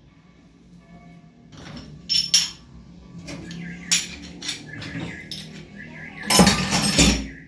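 Light clinks and knocks of a cleaning can and other items being handled on a stainless-steel electric cooker top. A louder rush of noise, lasting under a second, comes near the end.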